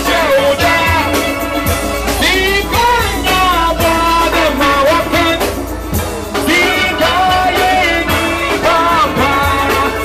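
Steel band playing loud, continuous music on steelpans with drums keeping a steady beat. Singing voices slide up and down in pitch over the pans.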